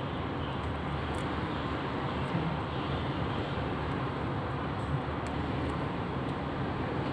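Steady low hum with an even hiss of background noise, and a few faint light clicks.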